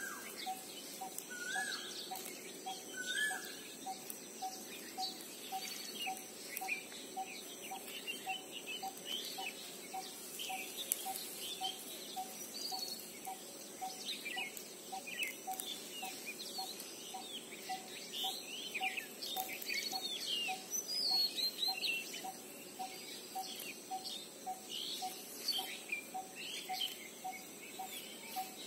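Birds chirping and twittering, many short overlapping calls, over a single note repeated evenly about three times a second and a faint, steady high-pitched whine.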